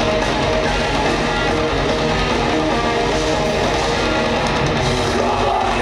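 Live heavy rock band playing with distorted electric guitars and drums, heard from the audience at a steady loud level.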